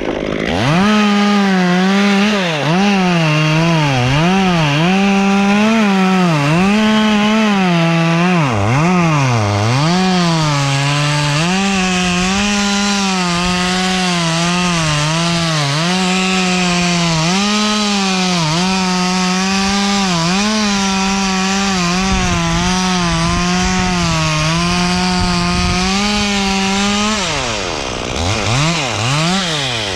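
Chainsaw running near full throttle and cutting into wood, its engine note sagging and recovering repeatedly as the chain bites. Near the end it drops off the cut and is revved up and down twice.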